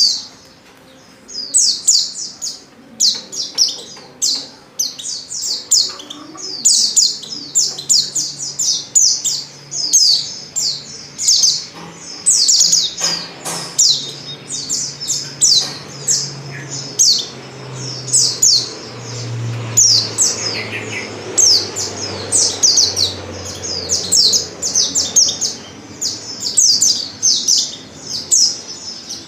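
Female white-eye (pleci) calling: rapid, high, thin chirps in quick repeated bursts with hardly a pause, the lure call used to set male white-eyes singing.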